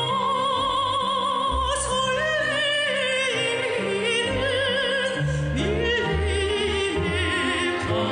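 Music: a singer holding notes with wide vibrato over orchestral accompaniment with a moving bass line.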